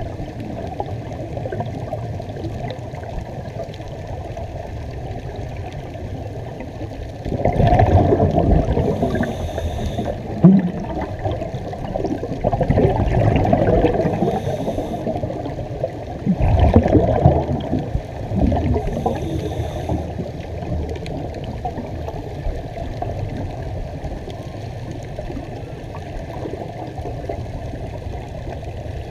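Water washing and sloshing along a boat's hull: a steady rush that swells louder three times.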